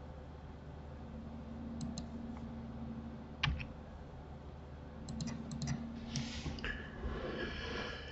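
Scattered computer keyboard and mouse clicks, a few sharp single taps with a quick cluster near the middle, over faint room tone.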